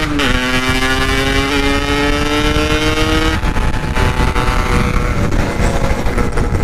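Yamaha RX-King two-stroke single, bored out to 144 cc and fitted with a Packing Power exhaust, accelerating hard. It shifts about a quarter second in, then the engine note climbs steadily for about three seconds before the throttle comes off and it settles to a steadier, lower drone. Wind rushes on the microphone underneath.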